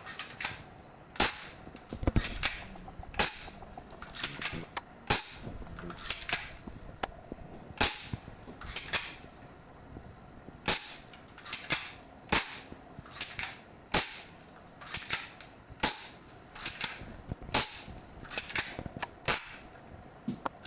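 Spring-cocked airsoft pistol firing shot after shot: sharp snaps, about one to two a second, some coming in close pairs. The shots stop shortly before the end as the pistol runs out of BBs.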